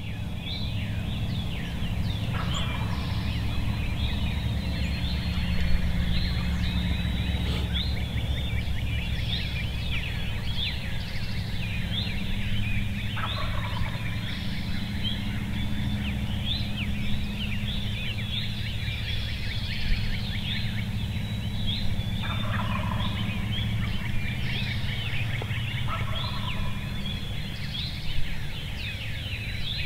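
A wild turkey gobbling on the roost, four times, over a dense chorus of songbirds singing. A steady low rumble runs underneath.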